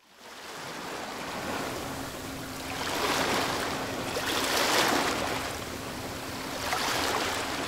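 Rushing sea-water sound like surf washing in, swelling and fading every couple of seconds, over a faint steady hum.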